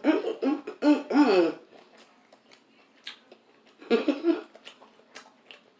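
A woman laughing in short bursts over the first second and a half, then faint small clicks of eating, and another brief laugh about four seconds in.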